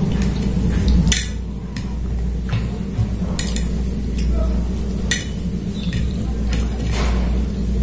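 A bare hand mixing rice and chicken curry on a plate: wet squishes and fingers scraping and tapping the plate in several short, sharp strokes, with chewing. A steady low hum runs underneath.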